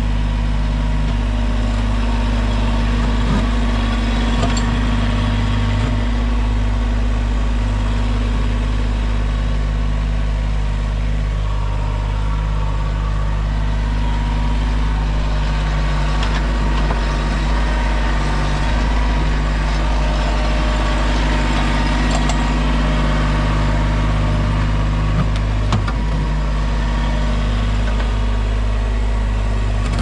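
Diesel engine of a Mahindra 1626 compact tractor running steadily while it powers the backhoe, with a few faint ticks and scrapes on top.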